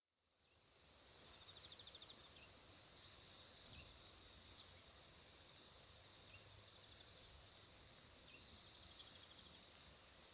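Faint rural outdoor ambience fading in over the first second: a steady soft hiss with a high, fast-pulsed trill that comes back every two to three seconds, and a few short high chirps.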